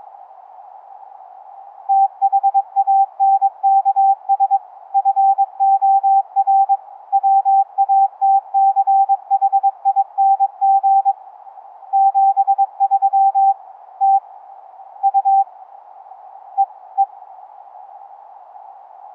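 Morse code (CW) as a single steady beep keyed on and off in dots and dashes. It is an 11 Hz ELF through-the-earth cave-radio signal shifted up to an audible pitch by a sound-card SDR, heard over a constant band of receiver hiss. The keying starts about two seconds in and runs until about fifteen seconds, followed by two short beeps near the end.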